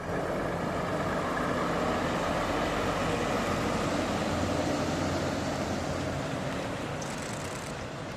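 Volvo FH tractor unit's diesel engine running steadily as it tows a trailer carrying a railcar, with heavy road noise, easing off slightly near the end.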